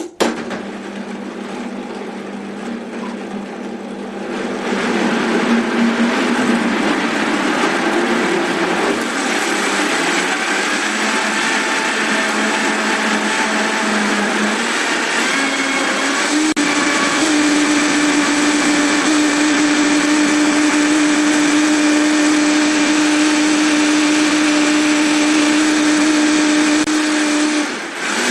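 High-powered countertop blender starting up and blending chunks of fruit with water into a smoothie. It runs softer for the first few seconds, then speeds up and runs louder, its motor pitch stepping up about halfway through and holding steady, with a brief dip near the end.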